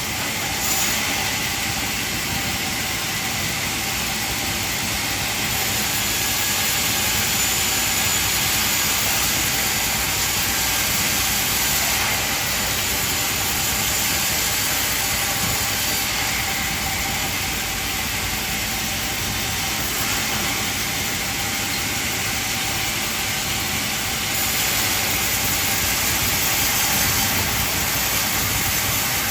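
Band sawmill running, a steady mechanical noise with a strong high hiss that holds at one level throughout.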